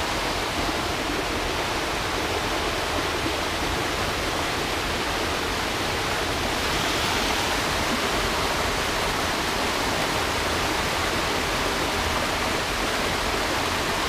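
A small mountain creek cascading over boulders in a little waterfall: a steady, even rush of water that never lets up.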